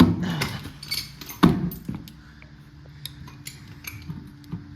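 Two loud metallic bangs, one at the start and another about a second and a half in, as the oil pan of a 6.5 turbo diesel engine is kicked to break it free; it is still stuck fast. A few light metal clinks follow.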